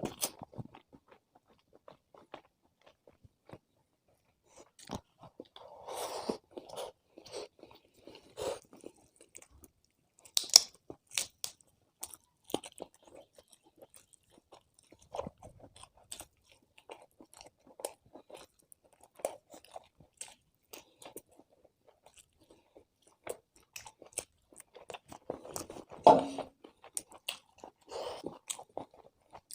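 Close-miked eating sounds: chewing and crunching in irregular bouts, with a few louder bites, the loudest about ten seconds in and again near the end.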